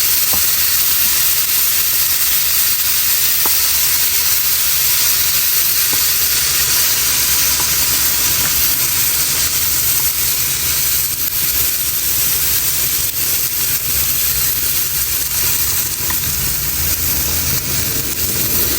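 Salmon frying with juices added, a steady loud sizzle with occasional small pops.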